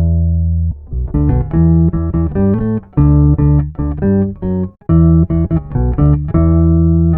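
Four-string Precision electric bass played through a Digitech Drop pitch-shifting pedal: a riff of plucked notes, some held and some quick, with short breaks between phrases.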